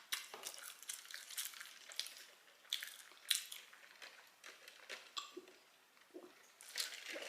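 Close-miked chewing and biting of fried chicken: irregular crunches and mouth clicks.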